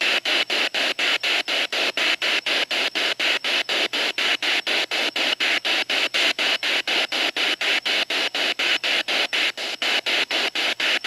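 Spirit box (radio-sweep ghost box) scanning through radio frequencies in reverse at a 250-millisecond sweep rate with its antenna down: a steady hiss of static chopped about four times a second, with no stations coming through.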